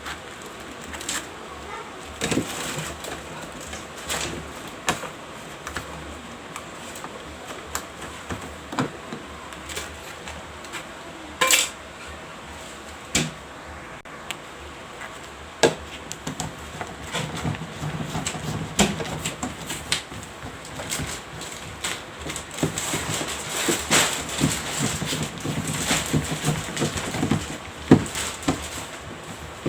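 Scattered clicks and knocks of small plastic and metal parts being handled and fitted, growing busier in the second half, as a blank plate and its screws go onto an electrical box.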